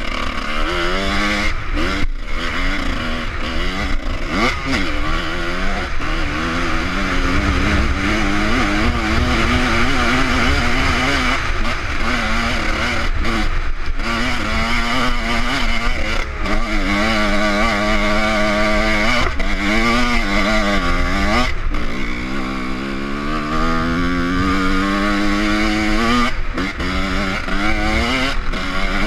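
Off-road motorcycle engine revving under load over rough ground. Its pitch rises and falls with the throttle, and it briefly drops off about 2, 14 and 21 seconds in. Near the end it climbs in one long, steady rise.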